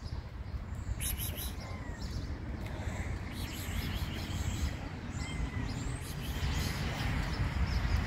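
Small birds chirping now and then over a steady low outdoor rumble.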